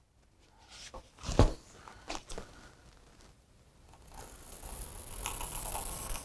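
A few light knocks as the canvas board and paper are handled, the sharpest about a second and a half in. From about four seconds in, a graphite pencil scratching steadily along a canvas board as a straight line is drawn across it.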